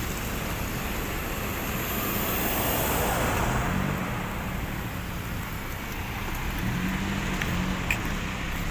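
Road traffic passing close on a wet road: tyre hiss with engine hum, swelling as a vehicle goes by about two to three seconds in and again around seven seconds.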